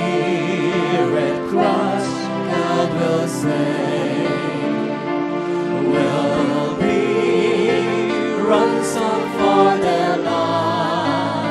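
A Christian worship song, sung by a group of voices with sustained instrumental backing.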